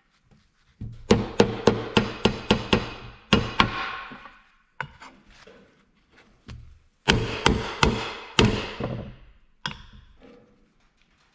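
Hammer blows on a seal/sleeve driver tool, driving a speedy sleeve (crankshaft wear sleeve) onto the nose of an Oliver 1855 crankshaft. The blows come in two quick runs of about three a second, each ringing briefly.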